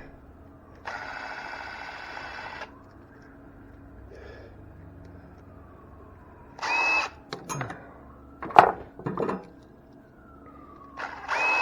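Cordless drill/driver whirring in three short runs, backing the mounting screws out of duplex receptacles. Sharp clicks of metal parts being handled fall between the second and third runs, the loudest a little past the middle.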